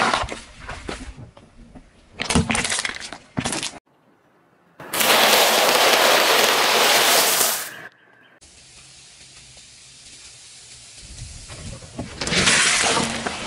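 Car tyre rolling over and crushing crunchy snacks on asphalt: bursts of crunching and cracking, in several separate clips. A loud hiss lasts about three seconds in the middle.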